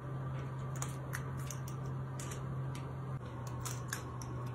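Faint, irregular clicks of a metal squeeze-handle cookie scoop as it releases cookie dough onto a lined baking sheet, over a steady low hum.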